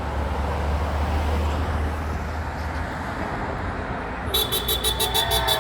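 Road traffic going by: a vehicle's low engine rumble and tyre noise. About four seconds in comes a rapid, high-pitched pulsing ring, about seven pulses a second, with voices calling out near the end.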